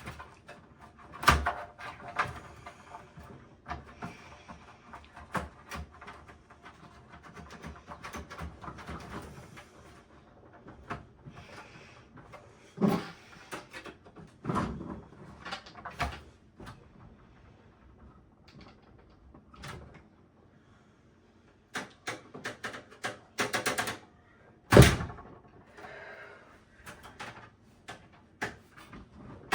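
Hands working on a desktop PC being taken apart: irregular clicks, taps and rattles of parts and screws, with a couple of sharper knocks, one about a second in and a louder one near the end.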